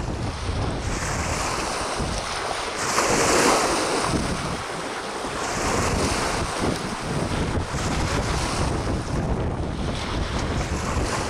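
Wind buffeting the microphone over choppy water lapping against moored boats, with a louder rush of noise about three seconds in.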